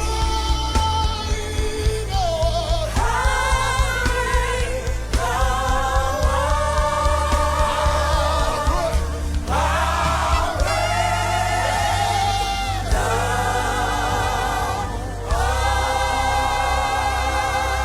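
Live gospel worship music: several voices singing sustained phrases together over a steady bass and keyboard accompaniment.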